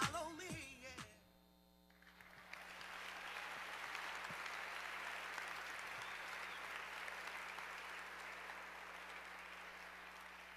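The end of a song with a chanting voice cuts off within the first second; after a short pause an audience applauds from about two seconds in, steady at first and then slowly tapering off.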